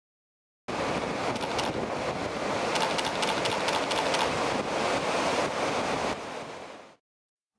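Ocean surf: a steady rush of breaking waves that starts suddenly and fades out near the end.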